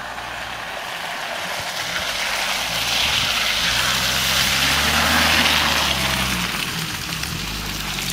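Engine of a first-generation Suzuki Vitara three-door SUV running as it drives through deep mud ruts and passes close by, with a hiss of tyres working through the mud. It grows louder to about five seconds in, then fades as it moves away.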